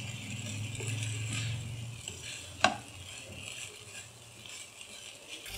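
Wooden spatula stirring and tossing macaroni and vegetables in a nonstick wok over a light, steady sizzle, with one sharper knock about two and a half seconds in.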